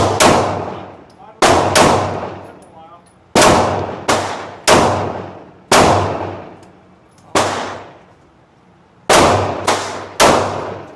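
About a dozen pistol shots fired at an uneven pace, some in quick pairs, with a pause of nearly two seconds near the end; each crack is followed by a long echoing decay.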